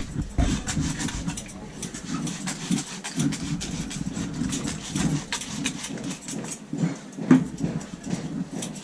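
Irregular hand slaps and taps of a head massage, with one sharper slap about seven seconds in, over a steady low background murmur.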